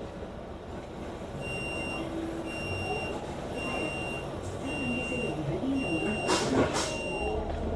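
Franchised double-decker bus's warning beeper sounding six even beeps, each about half a second long, over the low hum of the bus. Near the end comes a short, loud rush of air.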